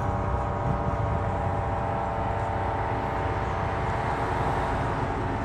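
UH-60 Black Hawk helicopter's twin turboshaft engines and rotor running, a steady hum that holds one pitch throughout.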